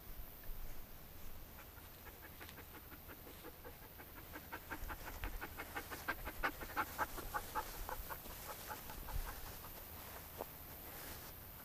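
An animal panting rapidly, about four to five breaths a second, building up and then fading away over several seconds.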